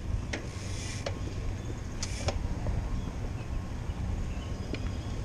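Wind rumble on the microphone and tyre noise from a bicycle rolling on pavement, with a few sharp clicks and rattles about half a second, one second and two seconds in.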